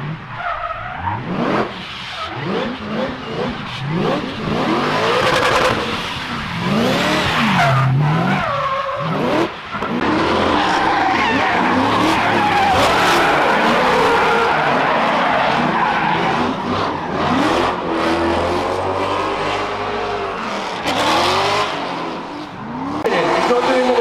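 Nissan 350Z drift car's engine revving up and down again and again through a drift, over tyres squealing and skidding; the tyre noise holds steady and loud through the second half.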